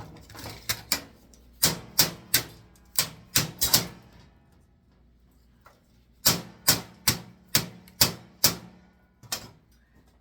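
Quick, irregular sharp taps and clicks of a hand tool knocking against metal, in two bursts with a pause of about two seconds between them, as copper winding is worked out of a small component.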